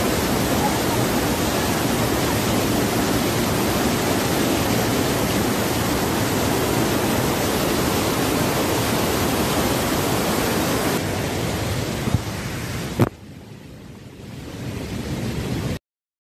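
Fast river water rushing over rapids, a steady loud wash of noise. About three-quarters of the way in there are two knocks, after which it is much quieter, then it cuts off to silence near the end.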